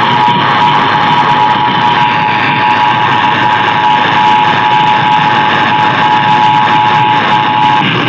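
Emergency Alert System attention signal: the steady two-tone alert (853 and 960 Hz sounded together) heard over a hissy AM radio broadcast. It marks the start of a Required Monthly Test and cuts off just before the end.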